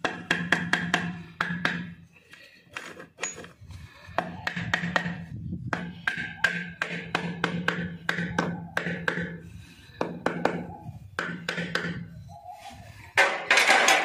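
Rapid sharp taps and knocks of metal parts against a motorcycle engine's aluminium crankcase as its gear shafts are fitted, with a louder clatter near the end.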